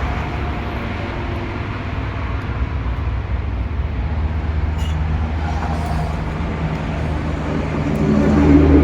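Strong wind buffeting the microphone: a loud, steady low rumble that swells near the end.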